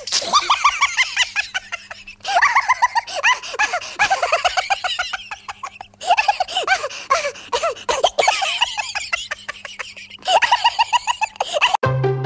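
High-pitched laughter: fast, repeated giggling in several stretches with abrupt breaks between them. Music starts suddenly near the end.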